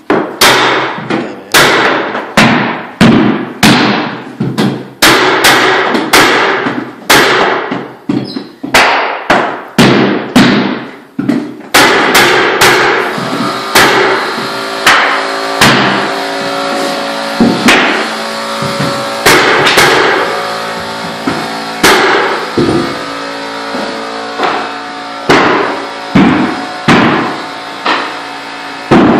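Background music with a strong, regular beat of struck notes, about one a second, with held chords under it from about halfway in.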